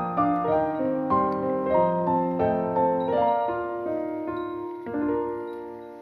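Background piano music: a gentle melody of single notes over low chords, ending about five seconds in on a chord that rings out and fades.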